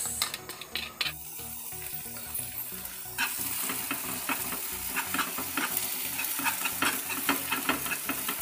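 Egg bhurji mixture frying in a nonstick kadai, with a wire whisk stirring and scraping it and clicking against the pan. A steady sizzle comes up about three seconds in and carries on under the clicks.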